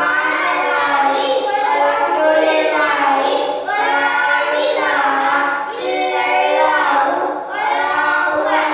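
Young boys singing together into a microphone, in phrases of a couple of seconds with long held notes and short breaths between them.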